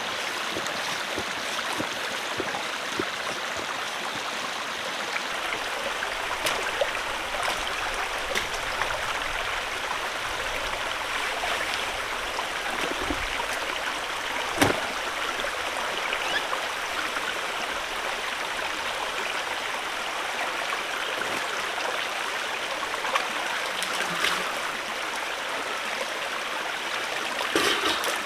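A mountain stream running steadily, with a sharp click about halfway through.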